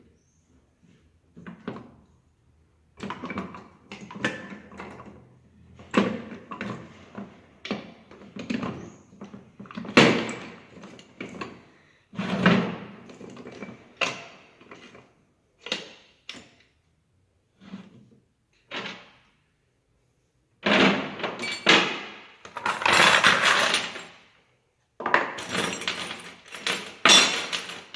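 Steel parts of a Ford Fiesta manual gearbox knocking and clattering as the shafts and gears are fitted into the gearbox case by hand. Irregular single clunks give way to longer, denser metallic rattling near the end.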